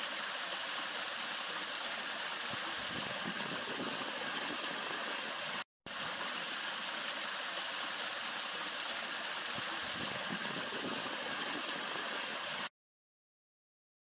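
Water from a pondless waterfall spilling over several stacked-stone ledges into a shallow rock basin: a steady splashing rush. It breaks off for an instant about six seconds in and stops about a second before the end.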